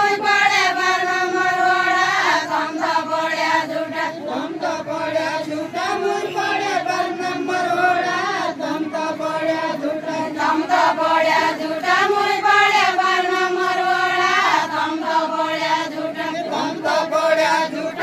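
A group of women singing a deuda folk song together in unison, in long drawn-out phrases of a repeating melody.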